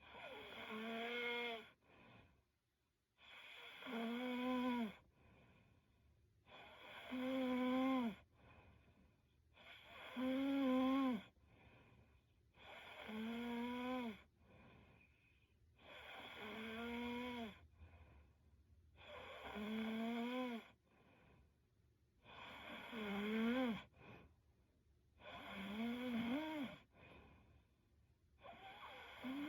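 A sleeping young woman snoring in a steady rhythm: a pitched snore about every three seconds, ten in all, each lasting a second or two, with a softer breath between.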